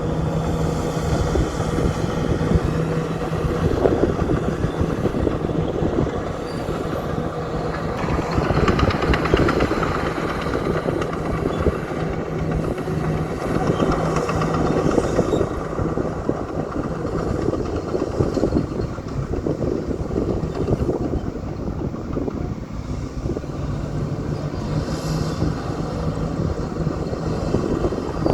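Old Komatsu bulldozer working: its diesel engine runs steadily under load while the steel tracks clank and rattle continuously. The engine swells louder a few times as it pushes.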